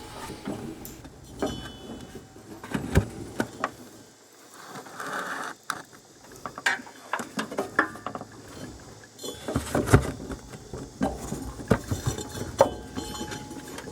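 Rubber drive belt being worked by hand around the metal pulleys of a riding mower's deck: scattered clicks, clinks and knocks, the loudest about ten seconds in.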